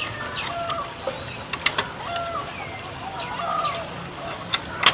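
Chickens clucking and calling in short, repeated notes, with a few sharp knocks about two seconds in and again near the end.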